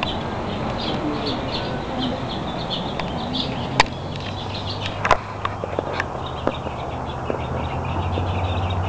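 Birds chirping steadily in the background, with a low murmur of voices in the first couple of seconds and a few sharp clicks and knocks around the middle. A low steady hum sits underneath.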